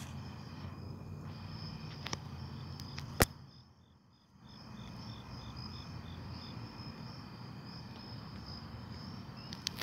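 Night insects, crickets, trilling steadily with high tones, plus a short run of quick chirps about four to six seconds in. A single sharp click comes a little after three seconds in, over a low steady rumble.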